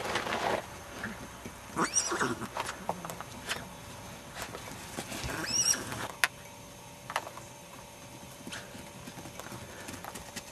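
Miniature horse foal whinnying twice, high, wavering calls about two seconds in and again about halfway through, with scattered short knocks.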